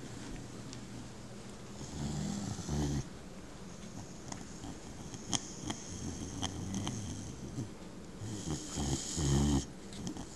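White boxer dog snoring in its sleep: two long, loud snores about six seconds apart, each a low rumble with a hiss on top, and fainter breathing and a few small clicks between them.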